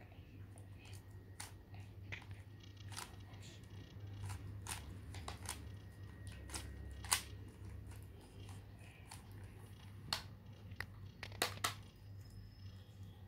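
Layers of a plastic 3x3 Rubik's cube being turned by hand, giving irregular sharp clicks, about one or two a second, over a steady low hum.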